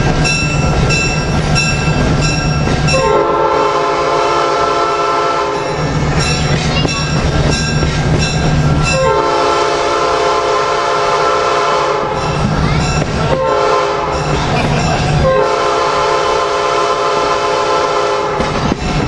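Diesel locomotive's multi-tone air horn sounding long, long, short, long, the grade-crossing signal, heard from a coach of the moving train. Underneath, the coach rumbles steadily with a regular clickety-clack of wheels over rail joints.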